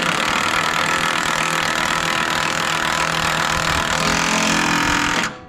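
Cordless DeWalt XR impact wrench running continuously as it drives a shock absorber mounting nut tight, its note shifting slightly about four seconds in, then stopping abruptly near the end.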